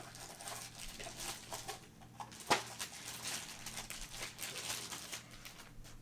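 Handling noise as a Magpul pistol grip is unpacked: plastic packaging rustling and crinkling, with scattered small clicks and one sharper click about two and a half seconds in.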